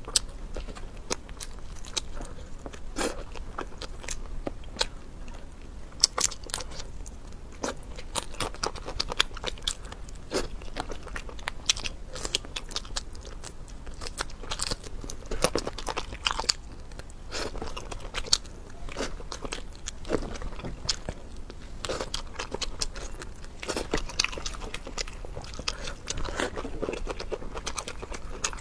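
Close-miked eating: a person chewing and biting spicy sauce-soaked perilla leaves, with many irregular sharp crunches and wet mouth clicks.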